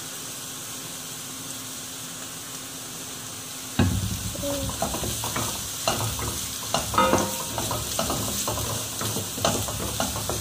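Lemongrass, garlic, shrimp paste and lime leaves sizzling in coconut oil in a wok, a steady faint hiss. About four seconds in, a wooden spatula starts stirring them, with irregular scrapes and taps against the pan over the frying.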